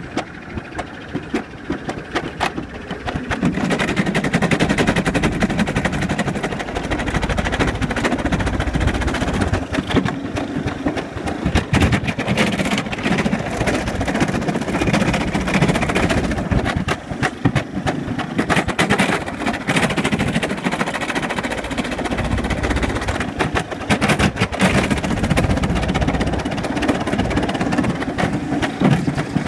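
Summer bobsled running fast down a stainless steel trough track: a steady rattling rumble made of dense, rapid clicks, getting louder about three seconds in as the sled picks up speed.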